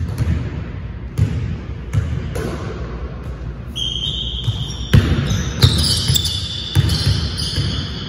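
A basketball being dribbled on a hardwood gym floor in irregular bounces. From about four seconds in, short high squeaks come from sneakers on the court.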